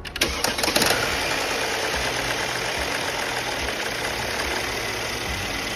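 Mercedes-Benz M276 V6 engine cranking and catching, then idling steadily.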